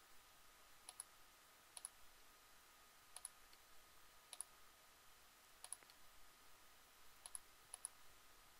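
Faint computer mouse clicks, about seven scattered clicks with some close press-and-release pairs, over a quiet steady hum.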